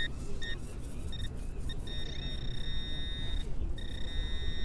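Handheld metal-detecting pinpointer beeping: a few short beeps, then a long steady tone, the sign that it is close over a buried metal target. Low wind rumble on the microphone underneath.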